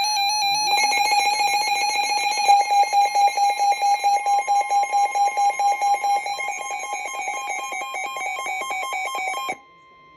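Electronic emergency-alert tones from weather alert radio equipment. A warbling buzzy tone is joined under a second in by rapid beeping, about four beeps a second, and a steady higher tone comes in about six seconds in. The loud alarm cuts off suddenly near the end, leaving the steady tone faint.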